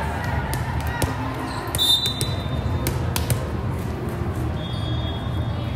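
Hall ambience of a multi-court volleyball tournament: a steady low hum with scattered ball thuds and knocks, and two short high whistles, one about two seconds in and a longer one near the end.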